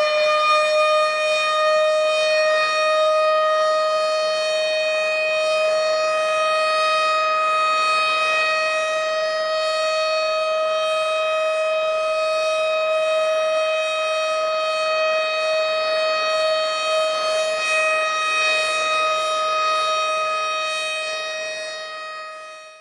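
Outdoor tornado warning siren sounding one long steady wail, the tornado warning signal. Its single strong note with bright overtones rises slightly into pitch in the first second, then holds, and fades out near the end.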